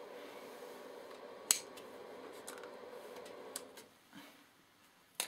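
Sharp clicks of bench equipment being handled: one about a second and a half in, small ones later. Under them is a faint steady hum that stops about four seconds in.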